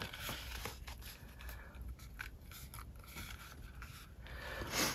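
Faint handling sounds of a small notepad holder cover being folded and turned in the hands: light rubbing and scraping with small ticks, a little louder near the end.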